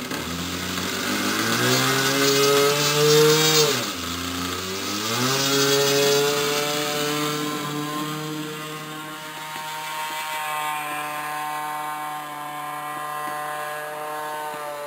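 Small model-airplane engine on an RC plane on skis, revving up, throttled back sharply about four seconds in, then opened up again and held steady at full throttle through the takeoff and climb.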